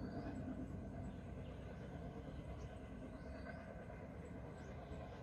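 Faint, steady low rumble of a distant diesel locomotive approaching on the line, with small birds chirping several times over it.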